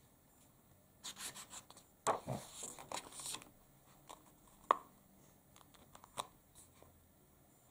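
A picture book's paper page being turned: a rustle and crackle of paper lasting about two and a half seconds, followed by a few light taps and rubs as a hand presses the new spread flat.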